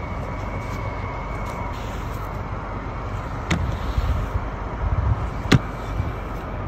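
Steady low rumble and hiss of a running vehicle, with two sharp clicks a couple of seconds apart, the second louder.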